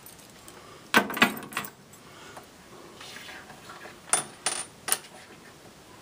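Metal keys jangling and clinking as a large key ring is handled: a short burst of jangling about a second in, then three sharp metallic clicks close together between about four and five seconds in.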